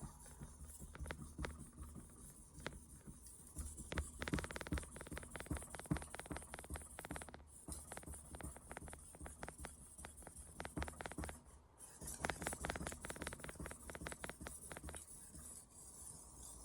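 Steel knife blade stroked back and forth across a 2000-grit Stratton Pro whetstone: a long run of quick, scratchy strokes, busiest about four seconds in and again about twelve seconds in.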